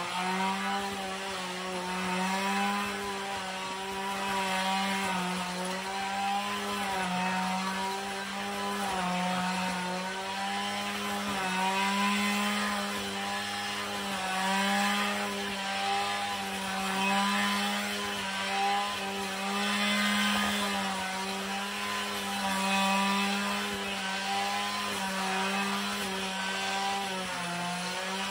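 Husqvarna 545RX two-stroke brush cutter running at high revs while mowing giant hogweed. Its engine note dips briefly and recovers again and again as the blade takes the load of the stalks, and the loudness swells and falls with it.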